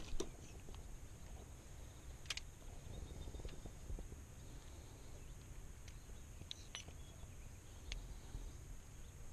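Faint handling noises from a fish lip-gripper and a hanging scale: a few scattered small clicks and clinks, several coming close together about two-thirds of the way in as the gripper is hooked onto the scale. Under them run a low rumble and a faint steady high hum.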